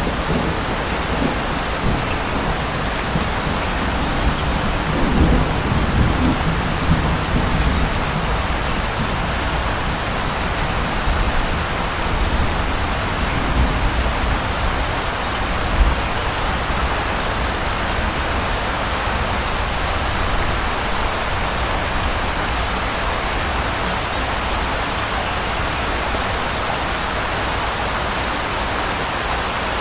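Steady rain hissing, with distant thunder rumbling low in the background for a few seconds about a quarter of the way in.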